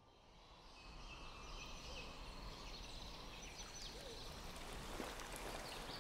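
Faint forest ambience fading in: birds chirping over a soft steady hiss.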